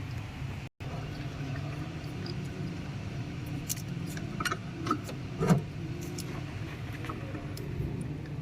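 Tata 407 Gold CNG truck engine running with a steady low hum, while metal tools or parts clink several times around the middle.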